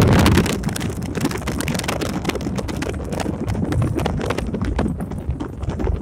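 Wind buffeting the phone's microphone held out of a moving truck's open window, with road noise and a rapid, irregular clicking rattle throughout. A heavy gust at the start eases after about half a second.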